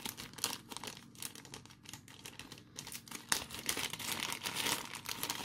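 Small clear plastic parts bag crinkling as fingers handle it and pick out small plastic button pieces: a dense run of fine crackles, louder in the second half.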